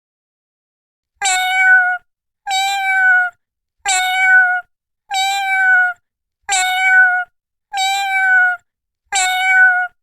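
Domestic cat meowing: the same meow repeated seven times, about one every 1.3 seconds, each ending with a slight fall in pitch.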